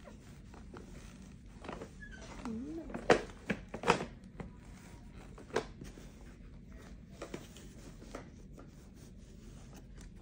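Plastic clicks, knocks and rustles of an infant car seat being handled as its harness height is adjusted. The knocks are loudest about three and four seconds in.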